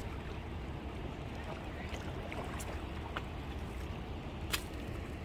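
Steady low wind rumble with a few faint, sharp clicks as a wire-mesh crab trap is hauled up out of the sea on its rope.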